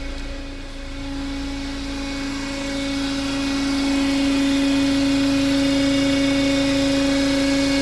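Renault Oroch engine running with a strong, steady droning tone that grows louder over the first few seconds, then holds. The noise comes from the intake manifold vibrating, which the mechanic traces to a faulty PCV valve: it goes away when the valve is disconnected.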